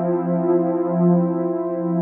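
Ambient background music of steady, sustained chords.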